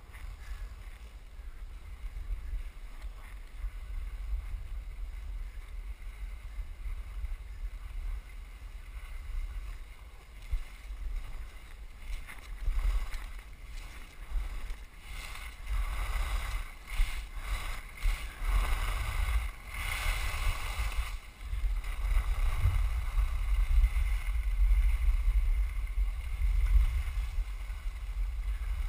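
Wind noise on the camera's microphone while skiing downhill, with skis hissing and scraping over groomed snow. The scraping grows louder for several seconds past the middle.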